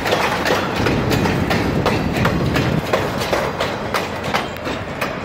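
Freight train boxcars rolling past close by: steel wheels clicking over the rail joints in a repeated clickety-clack over a steady rumble.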